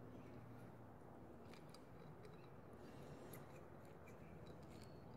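Near silence with a few faint, light metallic clicks and scrapes of a feeler gauge and small wrench working at a motorcycle valve adjuster while the valve clearance is set.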